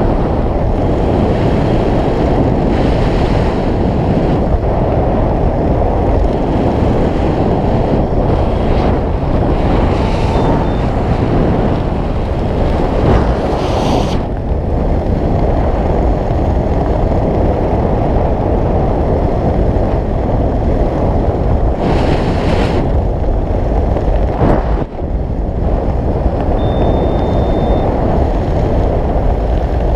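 Wind buffeting a camera microphone during a parachute descent under canopy: a steady, loud rushing noise with no let-up.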